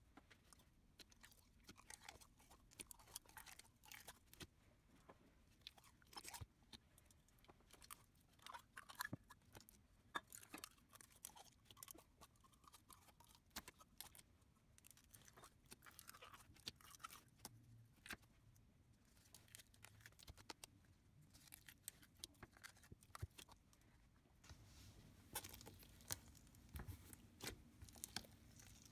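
Slime being kneaded and stretched by hand: quiet, irregular sticky clicks, pops and crackles, getting a little louder and busier near the end.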